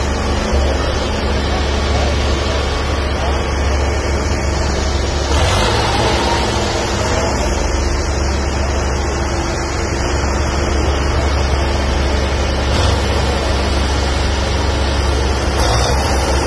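Diesel tractor engines, a John Deere among them, running hard and steady under full load as two tractors chained back to back pull against each other.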